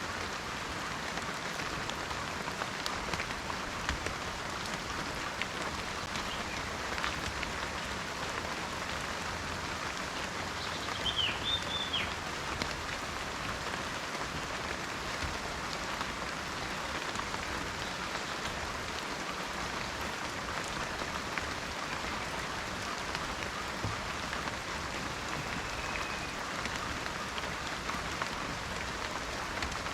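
Steady rain falling in a forest, a dense patter of drops. A brief high chirp comes about a third of the way in.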